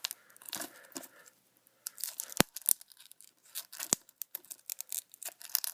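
Plastic wrapping on a Blu-ray case being torn and peeled off: irregular crinkling and crackling with a couple of sharper snaps.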